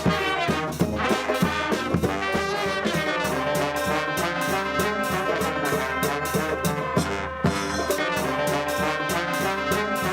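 Brass band music: several horns playing together over a steady drum beat.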